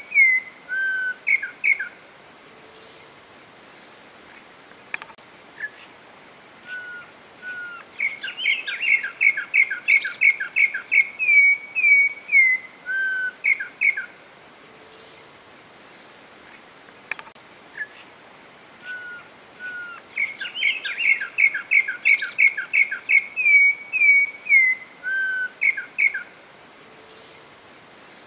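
Corrupião (campo troupial) singing: loud phrases of rapid, clear whistled notes, several a second, ending in a few lower slurred whistles. The phrases repeat about every twelve seconds, over faint high chirping in the background.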